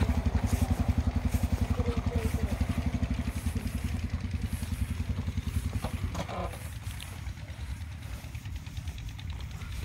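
Motorcycle engine running at low speed with a fast, even beat, growing quieter and dying down after about six seconds, with a brief clatter about then.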